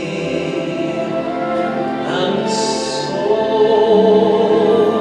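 A man singing a solo sacred song over an instrumental accompaniment, holding long notes, with a short hiss about two and a half seconds in.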